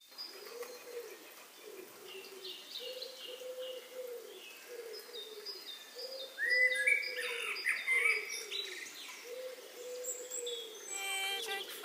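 Birdsong: a low hooting call repeated about once a second, with higher chirps and whistles that get busier and louder from about six seconds in. A musical chord comes in near the end.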